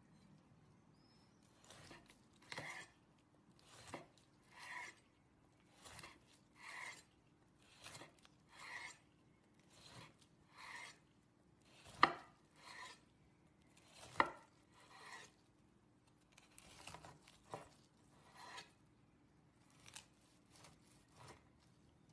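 A large knife sawing through glazed grilled meat on a wooden board, in slow, even back-and-forth strokes about one a second. Twice, about halfway through, the blade knocks sharply against the board.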